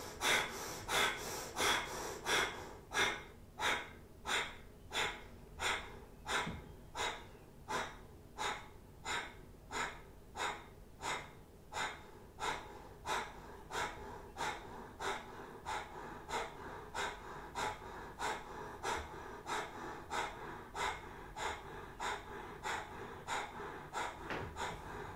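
A woman doing Kundalini breath of fire: short, sharp exhales through the nose, pumped from the navel, in a steady rhythm of a little under two a second. The breaths grow gradually softer.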